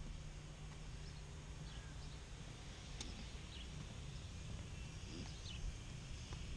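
Faint outdoor ambience: a low rumble with a few short, high bird chirps scattered through it.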